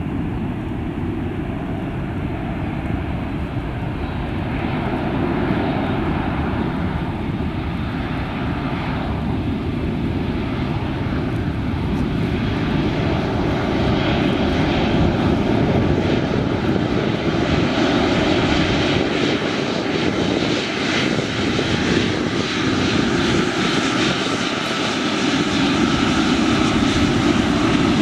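A Saudia Boeing 777-300ER's GE90 jet engines on its landing roll: a steady roar of engine and air noise that grows louder and brighter as the airliner rolls down the runway toward the microphone.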